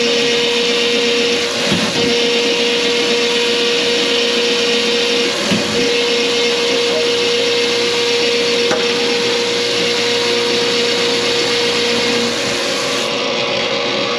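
A small electric motor running steadily, a rushing whir with a constant hum, briefly interrupted about two seconds and five and a half seconds in.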